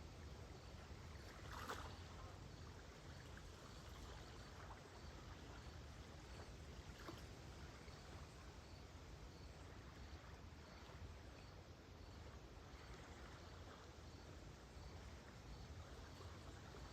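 Faint small waves lapping at a lakeshore, with a few soft splashes, and a cricket chirping faintly and regularly, about once every two-thirds of a second.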